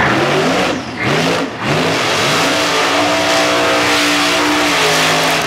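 Supercharged drag car engine revved in three quick blips, then held at high revs for about two seconds while the rear tyres spin in a burnout, the revs dropping near the end.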